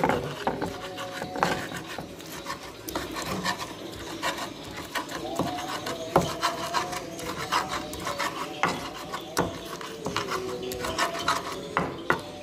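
Stone pestle (ulekan) grinding wet chilies and tomatoes against an earthenware mortar (cobek) to make sambal terasi: an irregular run of rasping, rubbing scrapes with sharper knocks here and there.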